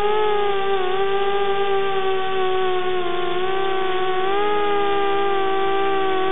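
An Eachine 250 Racer quadcopter's four brushless motors and propellers whining in flight. It is a steady whine whose pitch dips and rises slightly a few times as the throttle changes.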